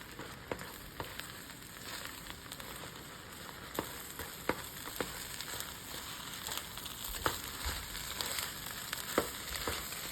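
Shrimp fried rice sizzling in a hot pan as it is stir-fried, with a dozen or so sharp clicks of the spatula against the pan.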